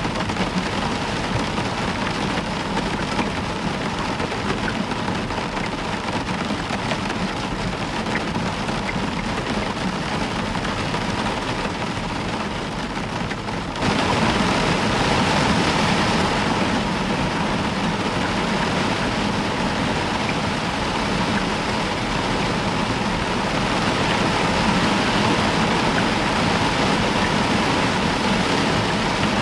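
Heavy rain falling steadily on a roof. About halfway through it abruptly becomes louder and brighter, and stays so.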